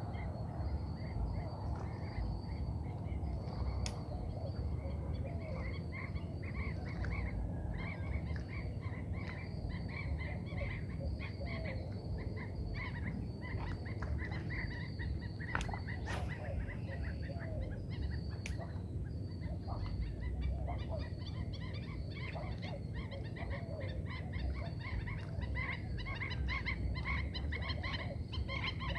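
Birds calling over and over, a dense run of short chirps and calls, over a steady low rumble. A couple of sharp clicks come about four seconds and sixteen seconds in.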